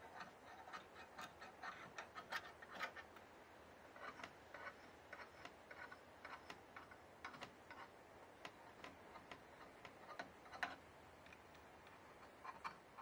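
Faint, irregular ticks and snicks of a weaver's knife cutting and working wool yarn at a hand-knotted carpet loom, several a second in clusters, with one sharper click about ten seconds in.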